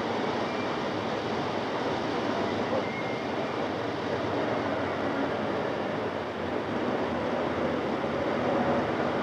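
Steam-hauled express train running at speed: a steady, dense rushing and rumbling noise on an old film soundtrack.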